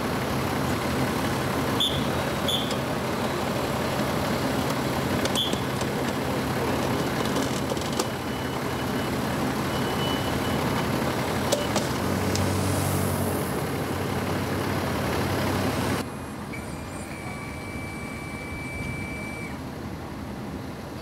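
Steady low rumble of an idling vehicle engine, with a few short high chirps and light clicks over it. About 16 s in the sound drops suddenly quieter.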